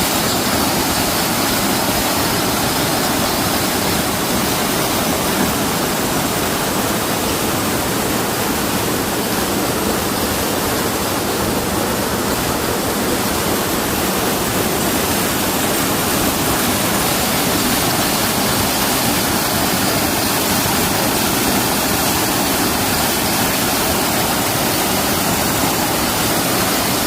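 Small mountain-stream waterfall pouring steadily, a loud even rush of falling water.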